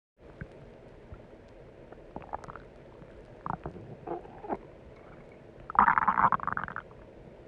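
Stomach rumbling: a run of short gurgles and squeaks, then a louder gurgle lasting about a second, about six seconds in.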